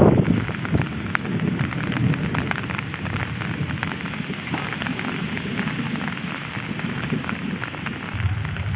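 Steady rain falling, an even hiss scattered with small drop ticks.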